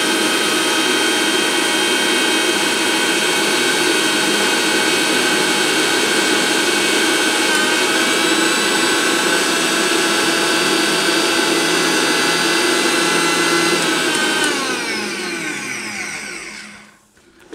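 Prestige Regal 750 W mixer grinder running steadily with a high motor whine as it grinds roasted cumin seeds to powder in its small steel chutney jar. Near the end it is switched off and the whine falls in pitch as the motor spins down.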